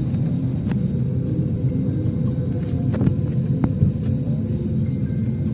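Airliner engines heard inside the passenger cabin: a steady, loud low rumble with a constant hum and a few faint clicks, as the plane gets under way for takeoff.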